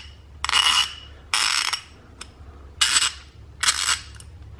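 GearWrench 84-tooth half-inch drive ratchet being worked by hand: four short bursts of fine, rapid clicking from the pawl on the gear teeth, about a second apart.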